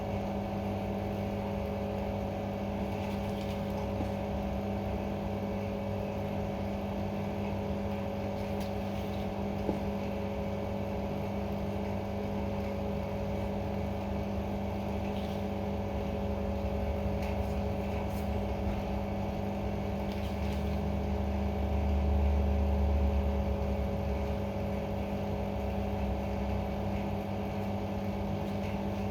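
A machine running with a steady hum, swelling in the low end about two-thirds of the way through.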